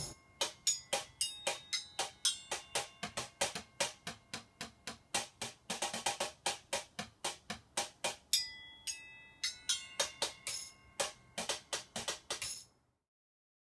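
Homemade bucket drum kit of buckets and metal pots played with chopsticks in a fast, steady beat of sharp strikes, some hits ringing metallically. The drumming stops abruptly about a second before the end.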